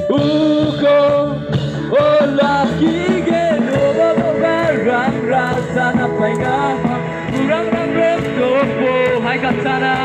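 A crowd singing a worship song together over amplified music with a steady beat.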